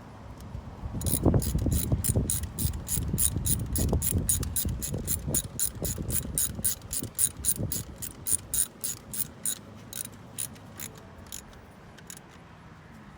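Socket ratchet on extensions clicking in quick, even strokes, about four clicks a second, as a spark plug is tightened down in a 2007 Malibu's four-cylinder engine. Dull knocks run under the clicks in the first half, and the clicking fades before stopping about a second before the end.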